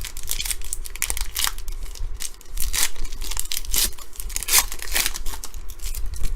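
A trading-card pack wrapper being torn open and crinkled by hand, a run of irregular sharp crackles.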